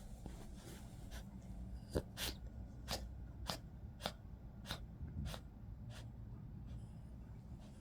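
Poodle taking short, sharp breaths, about eight in a row a little over half a second apart, as it settles its breathing after a coughing fit.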